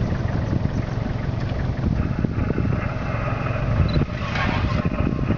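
Vehicle engine idling steadily, a low, even hum.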